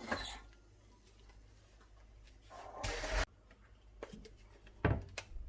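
Kitchen handling noise: a short rush of running water about two and a half seconds in that cuts off suddenly, then two sharp knocks near the end.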